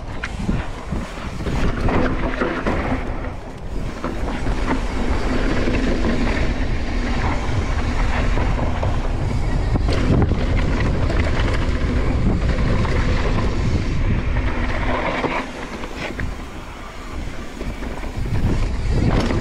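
A mountain bike descending fast over rough, bumpy dirt: tyres running over the ground and the bike rattling and knocking over bumps, with wind buffeting the microphone. It eases briefly near the end.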